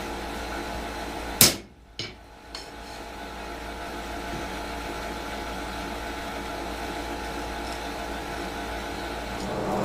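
A single sharp hammer blow on metal about a second and a half in, followed by two lighter knocks, over a steady electric hum.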